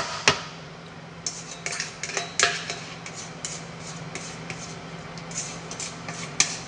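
Plastic spatula scraping and tapping inside a stainless steel mixing bowl as muffin batter is scraped out: two sharp taps at the start, then an irregular run of short scrapes and clicks.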